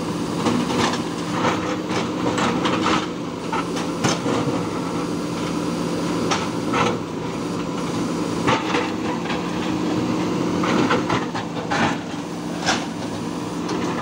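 Diesel engines of JCB 3DX backhoe loaders running steadily under load, with irregular sharp knocks and clanks as the backhoe bucket strikes and drags broken bridge masonry and stones.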